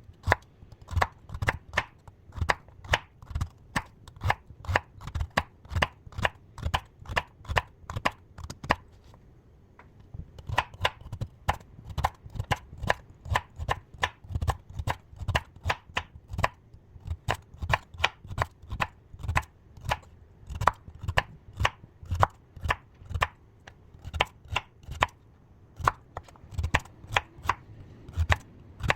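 Knife chopping food on a cutting board in quick, even strokes of about three a second, with a short pause about nine seconds in.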